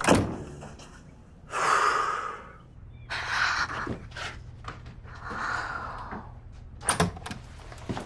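A door knocks shut at the start. Three long breathy sounds follow, and a couple of sharp clicks come near the end.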